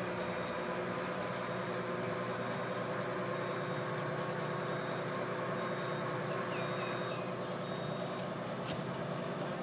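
Mobile crane's diesel engine running steadily, with a high-pitched warning beep repeating about once a second and a single sharp click near the end.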